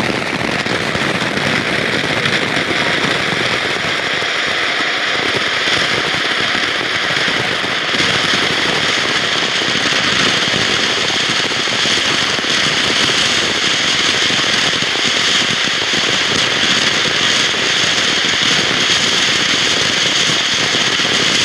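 Ground fountain firework spraying sparks: a loud, steady hiss.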